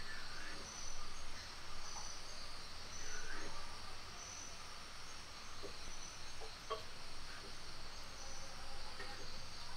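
Outdoor insect chirring, a steady high trill that swells in regular pulses, with a few short bird chirps scattered through it.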